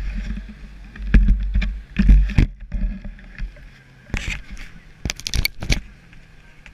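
Handling noise from an action camera being picked up and moved: low rumbling thuds in the first couple of seconds, then a few sharp clicks and knocks.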